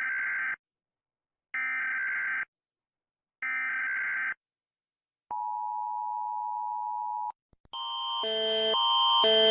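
Emergency Alert System-style alert: three one-second bursts of shrill data-header screeching, then a steady tone for about two seconds. Near the end, after two clicks, a louder alarm of alternating tones fades in and keeps repeating in a pulsing pattern.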